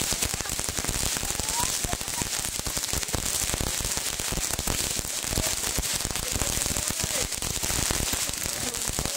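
Fireworks going off: dense, continuous crackling and popping, with many small cracks overlapping over a steady hiss.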